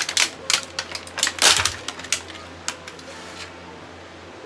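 Crinkling and crackling of a stiff clear plastic wrapper and clamshell tray being pulled open by hand, a rapid run of sharp crackles loudest about a second and a half in and dying away after about three and a half seconds.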